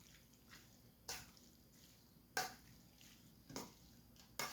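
Four faint, sharp taps of kitchen utensils or containers, roughly one a second.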